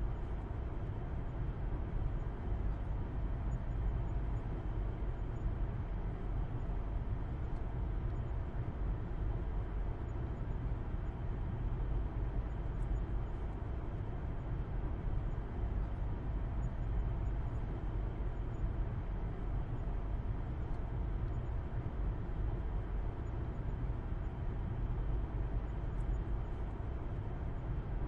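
A car driving at a steady speed: a low engine and road-tyre rumble with a faint hum above it, unchanging throughout.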